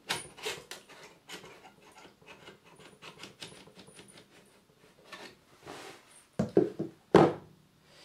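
Metal drive sleds being slid out of a Mac Pro's drive bays: a run of clicks and scraping, with scattered light taps, then a few sharp knocks about six and seven seconds in.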